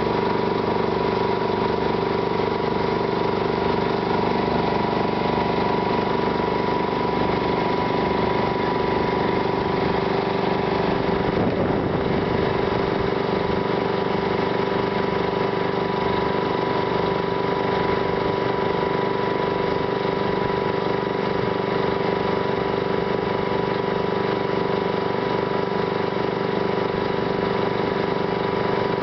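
Fire truck's pump engine running steadily at constant speed while it supplies the hose, a continuous hum with a steady whining tone.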